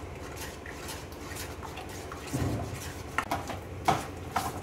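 Steel spatula stirring and scraping thick rice-flour dough in a stainless steel pan, clinking against the rim several times in the second half. The dough is being cooked and worked as it thickens.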